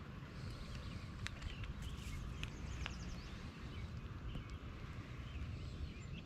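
Outdoor lakeside ambience: a steady low rumble with a light noisy hiss, faint bird chirps, and a few sharp clicks in the first half while a small rainbow trout is brought in on an ultralight rod.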